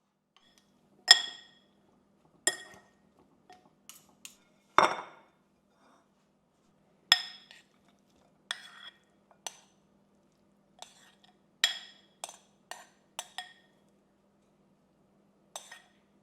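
Dishes and glassware clinking and knocking as they are handled: about fifteen separate strikes at irregular intervals, some ringing briefly.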